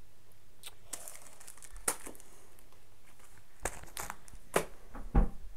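Handling noises: packaging rustling and crinkling, with scattered taps and knocks and a louder thump near the end.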